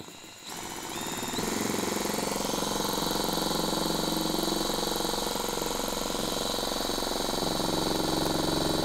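Cordless drill turning a 3D-printed piston vacuum pump. The run speeds up over the first second and a half, then holds steady while it draws a vacuum on a sealed glass jar.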